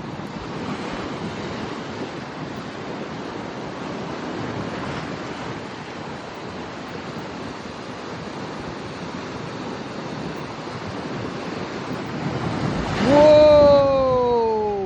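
Ocean surf washing steadily onto the shore, swelling and easing, with wind on the microphone. About two seconds before the end, a person lets out a long, loud "wow" that falls in pitch.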